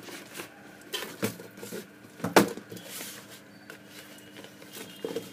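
Cardboard box and paper packaging being handled by hand: scattered taps, knocks and rustles, the loudest knock about two and a half seconds in.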